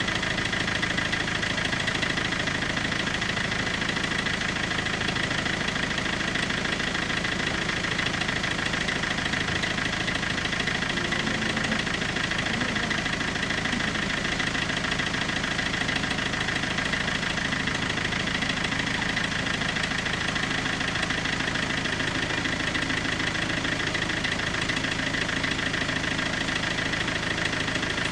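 Italian level crossing warning bells ringing nonstop in a rapid, even repetition, the steady bright ring of an active crossing warning of an approaching train.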